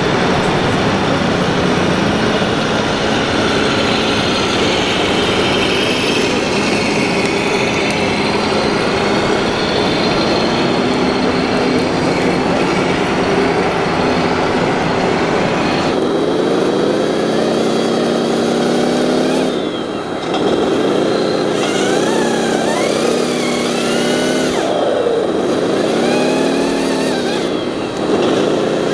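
Radio-controlled scale model vehicles running: a dense, steady mechanical noise, then from about halfway a pitched motor sound that rises and falls in pitch several times.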